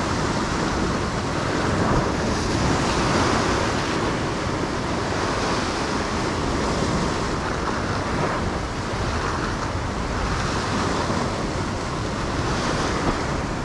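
Ocean swell breaking and washing in white water against a rock ledge just below, a steady rushing that swells and eases a little.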